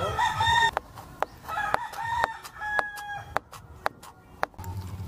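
A rooster crowing, its calls loudest at the start and again through the middle, over about a dozen sharp, irregular taps of a kitchen knife cutting young coconut meat on a wooden cutting board.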